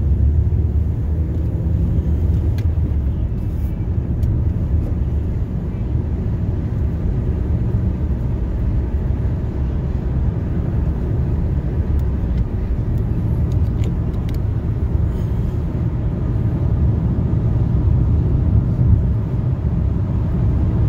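Car driving, heard from inside the cabin: a steady low road and engine rumble, with a few faint clicks.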